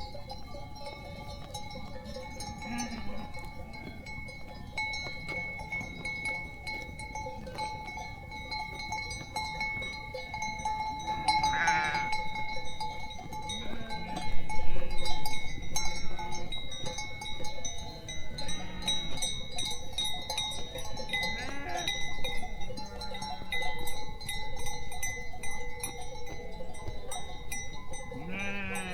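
Sheep and goats bleating, one call after another, the loudest about halfway through.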